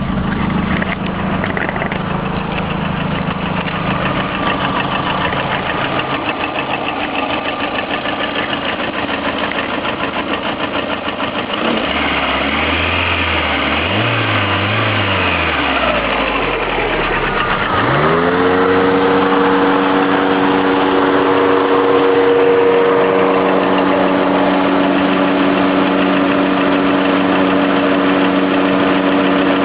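Lada Priora engine idling with a fast, light knock running through it. The revs rise and fall twice around the middle, then climb about two-thirds of the way in and hold higher. The owner calls it an unexplained knock, present cold and hot, that can't be heard at higher revs and doesn't affect how the car drives.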